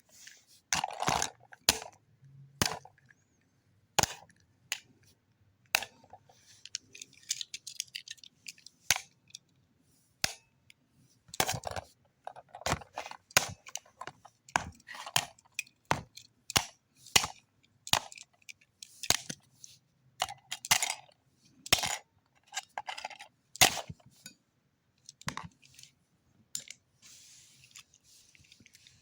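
Alarm clock's plastic casing and small parts being handled and worked on: irregular sharp clicks, taps and knocks with short rattles and scrapes between them.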